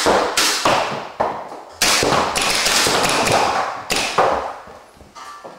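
Paintball markers firing and paintballs striking: a string of sharp, loud pops, then about two seconds of continuous rapid fire, with a few more shots around four seconds in before it fades.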